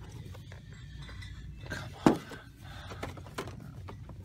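Boxed action-figure packages being handled and shifted on a store shelf peg, with one sharp knock about two seconds in and a few lighter taps after it, over a steady low background hum.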